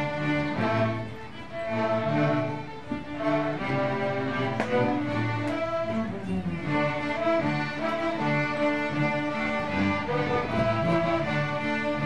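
Children's string orchestra playing a piece together, led by violins, in held bowed notes that change every second or so.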